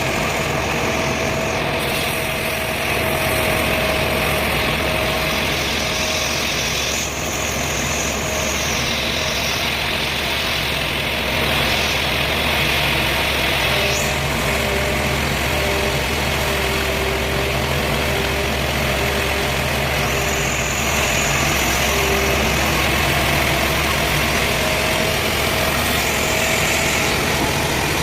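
Sawmill machinery running steadily while a saw cuts through tamarind wood, with a steady hum and a cutting hiss that swells and eases every few seconds.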